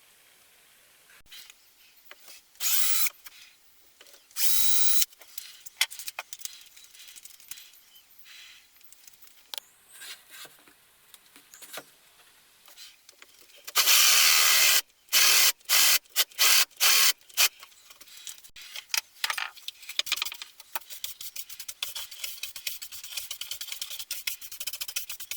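Power drill run in short bursts: two brief runs, a longer run about halfway through, then a quick series of short trigger blips, with small clicks and handling noise between them.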